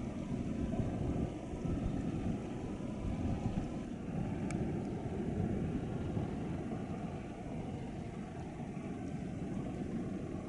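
Wind buffeting the microphone: a low, fluctuating rumble with no steady tone, and a faint click about four and a half seconds in.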